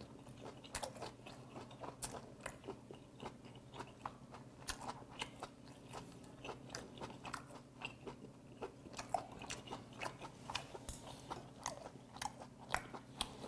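Close, faint chewing of boiled sea hare, a chewy sea slug eaten as a drinking snack: irregular soft wet clicks and smacks of the mouth working the firm meat.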